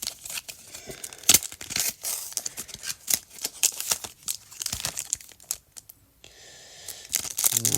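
Foil Pokémon booster-pack wrapper crinkling and tearing open in quick, irregular crackles and rips.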